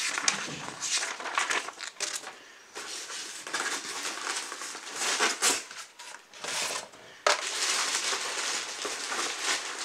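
Unboxing noises: paper and packaging rustling and crinkling as the instruction booklet is put down and the polystyrene foam insert is pulled from the cardboard box. A sharp crackle about seven seconds in is followed by continuous rustling.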